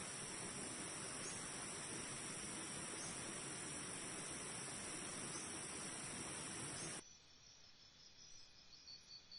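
A loud, steady hiss with a constant high ringing band stops abruptly about seven seconds in. A quieter ambience follows, in which crickets begin chirping near the end in a quick, even rhythm of short high pulses.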